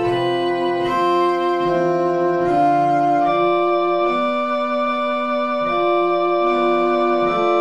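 Slow organ music: several held notes overlapping as voices of a canon, each note sustained without fading and changing every second or so.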